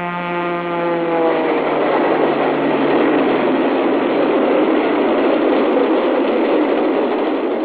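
Indian Railways train horn ending with a drop in pitch in the first second and a half, then the loud, steady rushing noise of the train running past.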